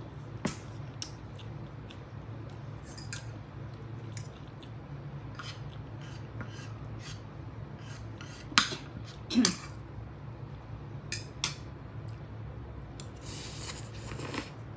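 A metal fork clinking and scraping against a bowl while noodles are eaten, in scattered light clicks with a few louder clinks a little past the middle. A brief slurp of noodles comes near the end, over a steady low hum.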